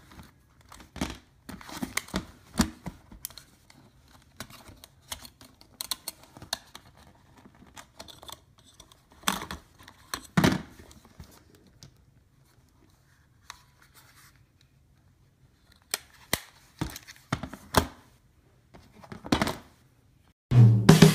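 Handling noise from a blue-and-silver Sony Walkman TPS-L2 cassette player: irregular plastic and metal clicks and scrapes as its battery compartment is opened and AA batteries are fitted, with short pauses and sharper clicks about halfway through.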